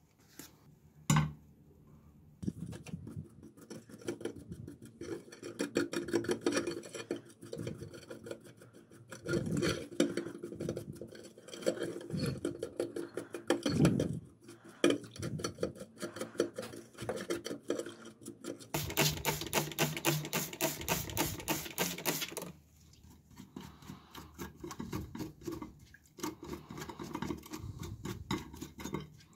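A brush scrubbing the brass gear train of an old alarm-clock movement in a glass dish of soapy water, in quick rubbing strokes. There is a single knock about a second in and a louder, harder burst of scrubbing about two-thirds of the way through.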